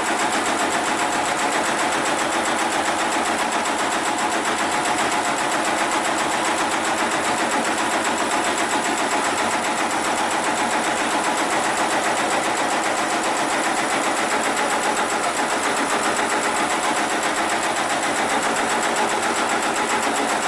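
Hightex 733PLC CNC pattern sewing machine running continuously, stitching through lifting-sling webbing held in a template that moves under the needle, with a fast, even stitching rhythm.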